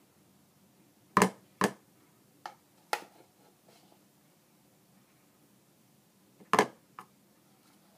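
A spoon knocking against a plastic bowl in short sharp clicks: two loud knocks about a second in, two fainter ones soon after, and a loud knock followed by a faint one near the end.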